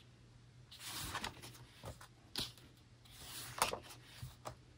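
Pages of an album photobook being handled and turned: a few soft, short paper rustles.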